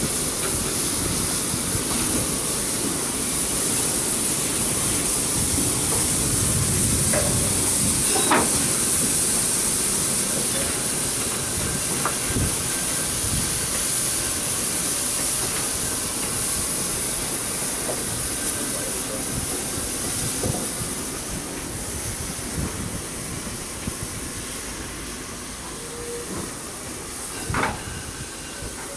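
Steam hissing loudly from the cylinders of two slowly passing steam locomotives, including DB class 01 Pacific 01 066, with a few faint knocks from the running gear; the hiss fades over the last several seconds as the locomotives draw away.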